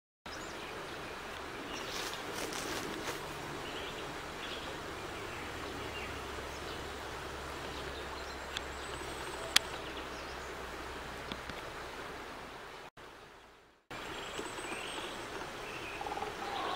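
Steady outdoor woodland ambience, an even hiss with a few faint high bird calls. A single sharp click comes a little past the middle. The sound fades and drops out briefly about two-thirds of the way through, then resumes.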